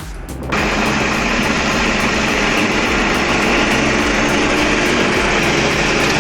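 Heavy machine's diesel engine running hard under load: a loud, steady rumble with a dense hiss over it, cutting in suddenly about half a second in.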